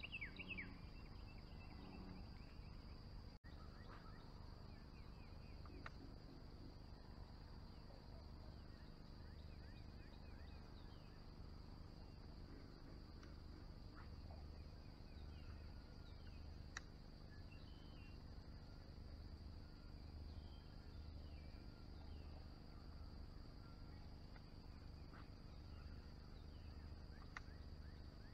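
Faint steady high-pitched insect drone, with scattered faint bird chirps and a couple of faint ticks.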